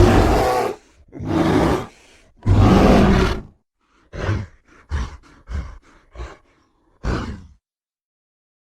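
Monster vocal sound effects mixed from animal and film-creature roars: three loud roars of about a second each, then a quick run of six short grunts and one last grunt.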